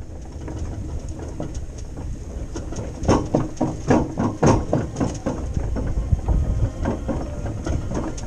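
Aluminium boat rattling and clunking on its trailer while being towed over the road, with a steady rumble underneath and a run of louder knocks from about three seconds in.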